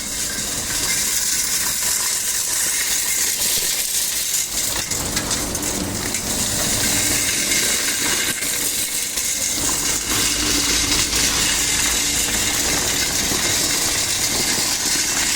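Industrial vacuum for concrete dust running steadily: a continuous loud hiss of rushing air over a low motor rumble.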